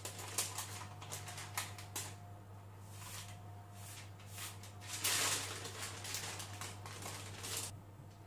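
Baking paper rustling and crinkling as hands use it to roll up a sheet of shortcrust pastry, in a run of soft strokes with the loudest rustle about five seconds in.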